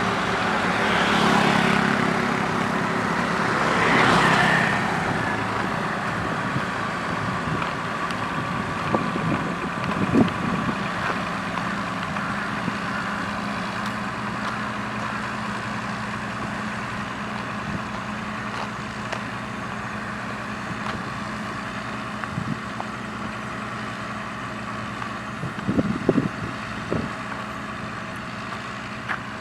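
Heavy diesel engine of a road roller on an asphalt job running steadily. Two swells of louder noise come in the first few seconds, and a few short knocks sound around ten seconds in and again near the end.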